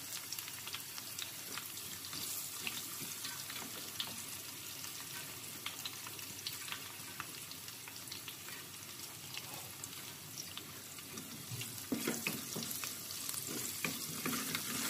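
Garlic cloves, cumin and asafoetida frying in hot desi ghee in a small kadhai: a steady sizzling hiss dotted with small crackles. From about twelve seconds in, a wooden spatula stirs and scrapes the pan.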